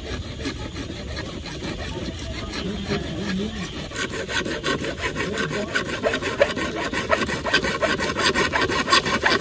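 Hacksaw blade sawing through a PVC plastic pipe in rapid back-and-forth strokes. The sawing starts light and gets louder and quicker from about four seconds in.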